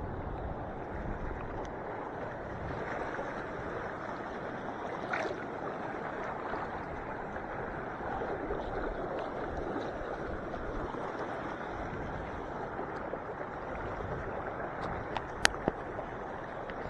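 Steady rush of small waves lapping with wind on the lake, with a couple of sharp clicks near the end.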